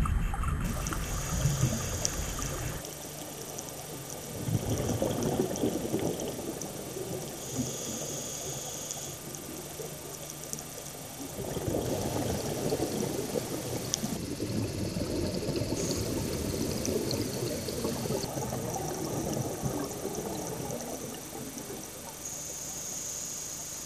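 Scuba diver breathing through a regulator underwater: a short hiss on each inhale, then long bubbling gurgles of exhaled air, over several breaths.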